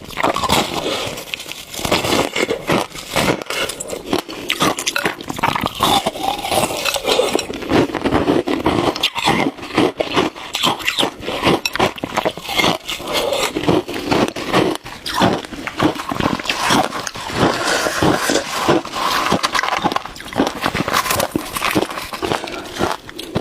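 Close-miked chewing of shaved ice: a dense, irregular run of crunches and crackles that goes on without a break.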